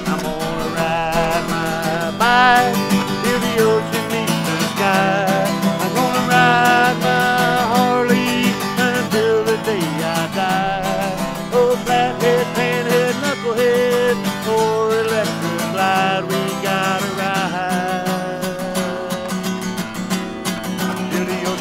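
Country song played on an acoustic guitar: strummed chords with a wavering melody line above them.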